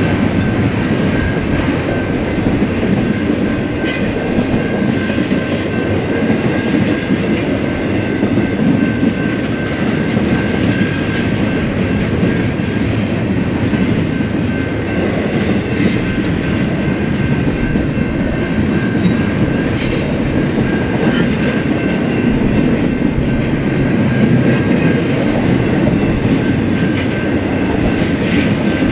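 BNSF freight train's cars rolling past steadily, the wheels rumbling and clicking over the rail joints, with a faint steady high ring from the wheels.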